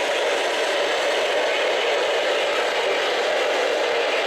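Steady radio static: an even hiss with no station audio or voice coming through.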